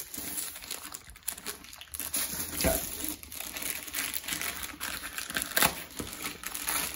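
Thin plastic wrapping around a rolled diamond-painting canvas crinkling as the roll is handled and turned to be opened, with a couple of sharp clicks, one a little under three seconds in and one a little after five and a half.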